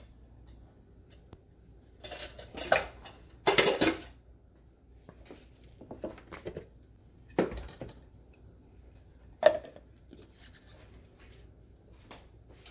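Kitchen utensil clatter: a metal spoon and steel bowl clinking and scraping, and a steel blender jar knocked down on the counter, as spiced grated coconut goes into the blender. It comes as several separate clinks and knocks, the sharpest one about two-thirds of the way through.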